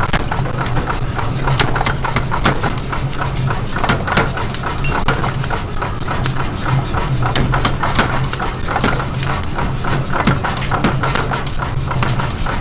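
Repeated hammer blows in quick, uneven succession on a top tool and glowing iron billet held on an anvil, hand-forging a hammer head.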